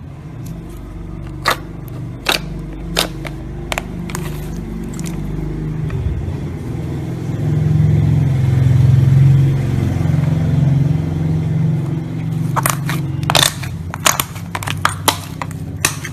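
Slime being squeezed and kneaded close to the microphone: a continuous low squelching that grows loudest in the middle, with many sharp pops and clicks of trapped air, bunched most thickly near the end.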